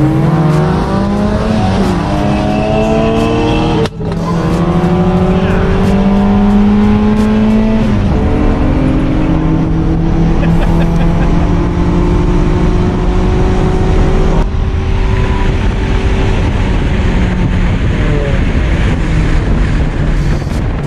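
1990 Volkswagen Jetta's swapped-in 1.8-litre single-cam four-cylinder with a 276 cam, heard from inside the cabin under hard acceleration. Engine pitch climbs and drops back at each upshift, clearest about 4 and 8 seconds in, then holds steadier at speed.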